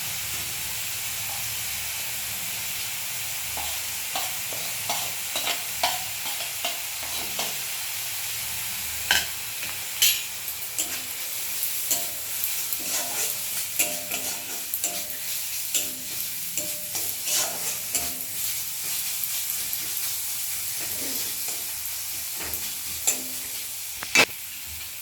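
Onion-and-tomato spice paste sizzling as it fries in a pan, freshly dosed with turmeric powder. From about four seconds in, a spatula stirs it, scraping and clicking against the pan, with a few louder knocks.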